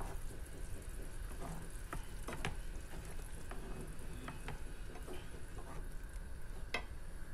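A wooden spatula stirs shrimp and vegetables through a sauce in a frying pan, giving a few light, irregular knocks against the pan over a steady sizzle.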